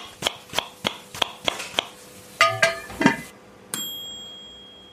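Outro sound sting: sharp knocks at about three a second, a couple of pitched metallic clanks, then a single bright ding that rings on and slowly fades.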